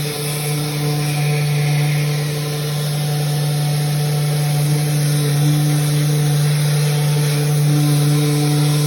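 Electric sander running steadily while sanding a cabinet door to prep it for paint: a constant motor hum over a hiss.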